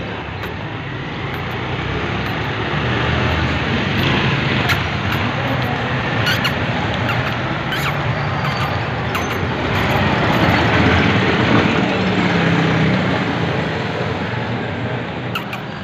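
Road traffic noise, a steady rumble and hiss that swells twice as vehicles pass, with a few faint clicks.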